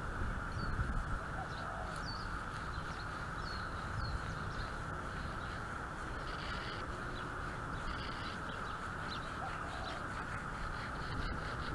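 Birds chirping on and off over a steady outdoor background hum.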